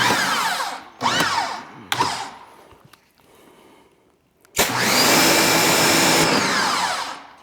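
Ryobi electric pressure washers running in bursts as the spray trigger is squeezed and released, the motors whining up and spinning back down: a few short bursts, then a longer run of about two and a half seconds starting halfway through.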